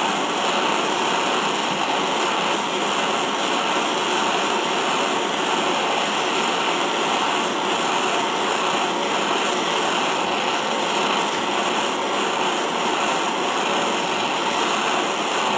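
Handheld propane torch burning with a steady, even hiss as its flame heats the pressed-on inner bearing of a differential pinion so it can be freed from the shaft.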